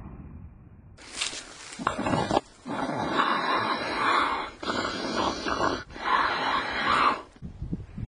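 Snoring sound effect: a run of long, noisy breaths in and out, with short breaks between them, starting about a second in and stopping shortly before the end.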